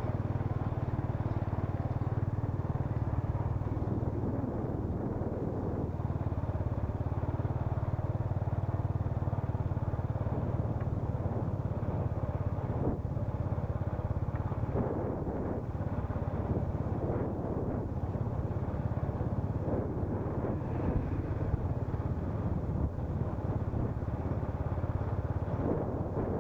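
Small motorbike engine running steadily at low speed, with a constant low hum, plus wind and road rumble on the mounted camera's microphone.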